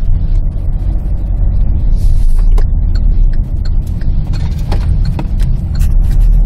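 Low, steady in-cabin rumble of a Kia Carnival minivan driving slowly through a U-turn, with a few light clicks and rattles scattered through it.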